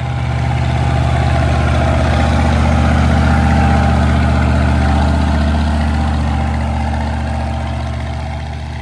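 International 1468 tractor's IH DV550 V8 diesel engine running steadily as the tractor drives past, growing louder and then slowly fading.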